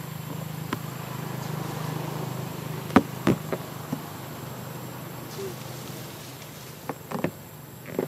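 A buzzing insect droning steadily for the first few seconds, then fading out about halfway. Scattered sharp clicks and snaps sound over it, the loudest about three seconds in and a few more near the end.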